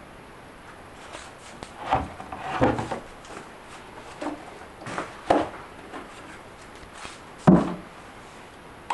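Knocks and clunks from handling a front-loading washing machine, several scattered hits, the loudest near the end.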